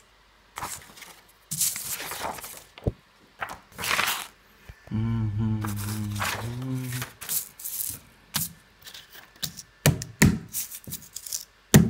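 Paper instruction sheets rustling and punch-out card pieces of a cardboard model kit being handled, with sharp taps and clicks of card on a wooden table. A low voiced hum lasts about two seconds near the middle.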